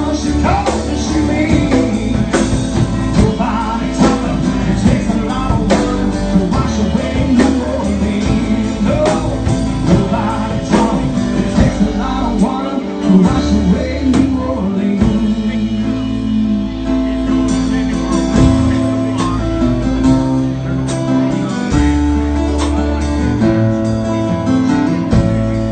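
Live band playing an instrumental break of a country-rock song: guitars carrying a bending lead line over bass and drums.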